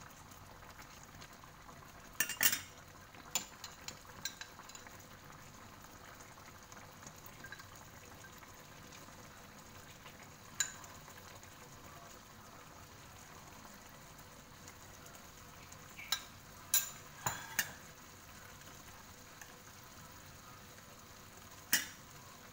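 A stew simmering on low heat in a wok, a faint steady sizzle and bubble as the cornstarch-thickened sauce cooks. A spatula or spoon clinks and scrapes against the wok now and then: a few times in the first few seconds, once about ten seconds in, a cluster around sixteen to eighteen seconds, and once near the end.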